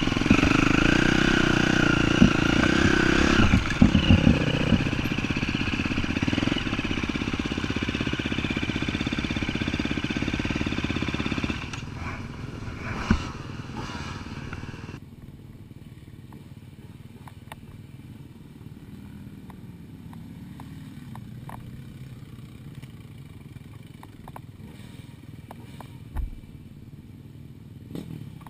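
Off-road motorcycle engine running on a rough trail with rattling, loud for the first dozen seconds. It then drops away, and from about 15 seconds in it is much quieter and steady, with scattered small clicks.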